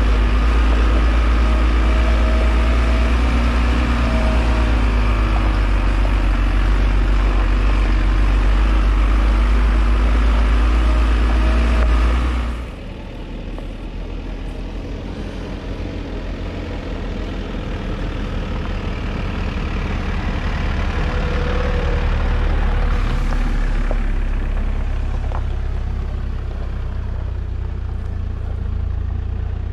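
Mercedes Vario expedition truck's diesel engine crawling along a gravel track in low-range gearing, a loud steady drone up close for the first twelve seconds or so. Then it cuts suddenly to a quieter sound of the truck's engine and tyres on gravel as it drives up and past, swelling and then easing off.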